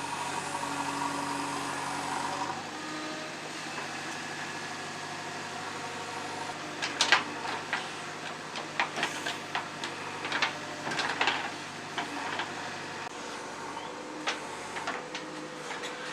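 JCB 3DX backhoe loader's diesel engine running steadily, with a run of sharp clanks and knocks starting about halfway through.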